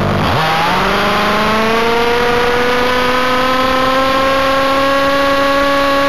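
30.5cc stroker two-stroke engine of an HPI Baja 5B 1/5-scale RC car at full throttle, heard from onboard. It revs up sharply in the first moment, then holds a high, steady note whose pitch creeps slowly upward as the car gathers speed, nearing its top of about 17,200 rpm.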